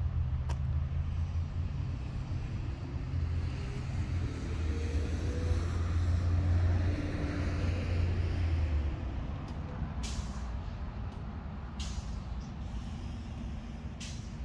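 A large vehicle's engine running, with a low hum that rises in pitch and fades away about nine seconds in, then three short hisses.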